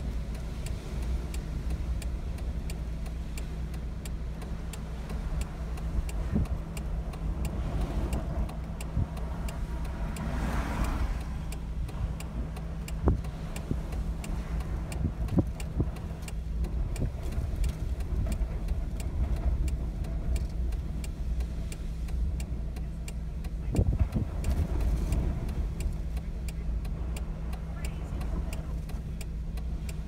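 Car engine idling, a steady low hum heard from inside the cabin, with storm waves breaking against the sea wall outside. A louder rush comes about ten seconds in, and there are a few sharp knocks.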